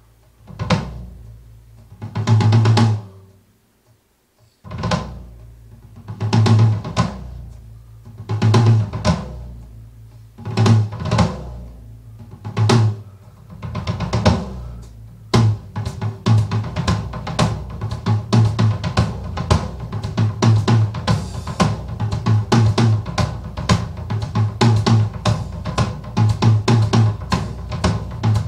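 Solo drum-kit recording. Heavy, ringing tom and bass-drum strikes come about every two seconds at first. About halfway through they give way to a faster, continuous beat with snare and cymbal hits.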